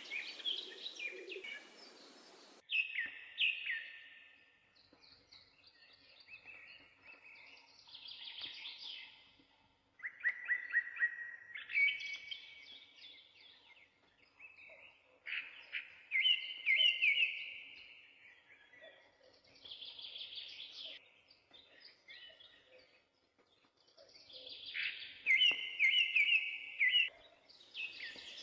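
Birdsong: birds chirping and singing in short repeated trilled phrases with gaps between them. A hiss under the first phrases cuts off sharply about two and a half seconds in.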